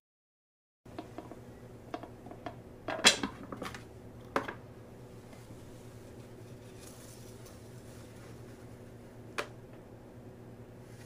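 Light clicks and knocks of a metal cake tin being handled on a turntable, loudest in a short clatter about three seconds in and another knock a second later. Faint rustling of a steamed cloth towel follows, over a low steady hum.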